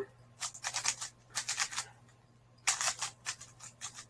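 Plastic speedcube being turned fast in four short bursts of rattling clicks, with brief pauses between runs of turns.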